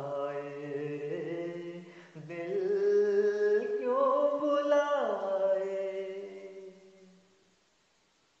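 A man singing long held notes of a Hindi film song, one note gliding down about five seconds in; the voice then fades out and stops shortly before the end.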